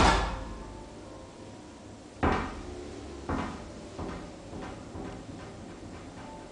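A series of knocks or bumps in a stone-tiled bathroom, each with a short echo: a loud one about two seconds in, then several fainter ones at shortening gaps.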